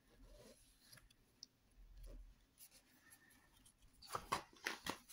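Paper pages of a large hardcover book being handled: faint rustling, then a quick cluster of louder paper rustles and flaps about four seconds in as a page is turned over.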